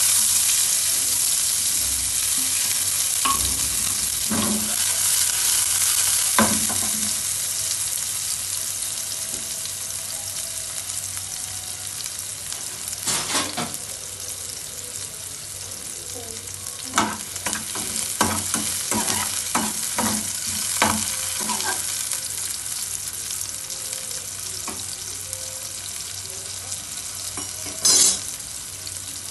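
Sliced onions sizzling in hot oil in a metal pan, starting loud as they drop in and slowly settling to a steadier, quieter fry. Stirring brings a few sharp clinks and scrapes against the pan, in a cluster in the second half and once near the end.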